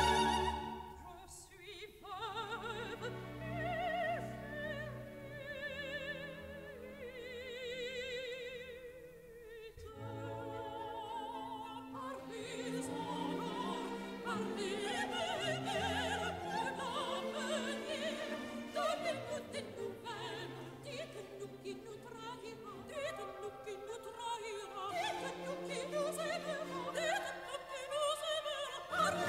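Operatic singing with a wide vibrato over orchestral accompaniment, used as the scene's music; the orchestra swells into a fuller passage about ten seconds in.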